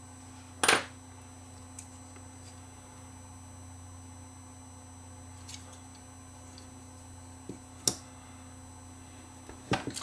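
Scattered light clicks and taps of a small circuit board, screwdriver and plastic camera housing being handled on a workbench, the loudest about a second in and a few more near the end, over a steady low hum.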